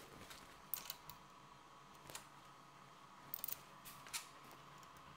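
A few faint, scattered clicks and light metallic taps from a milling machine's spindle being turned by hand, the long DTI bar swinging round onto a dial test indicator. A faint steady high hum runs underneath.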